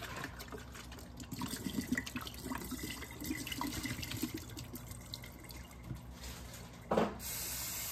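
Hot rinse water sloshing inside a plastic ketchup bottle as it is shaken and poured out into a stainless steel sink, with light knocks of the bottle, while the ketchup residue is rinsed out. Near the end the kitchen tap comes on and runs steadily.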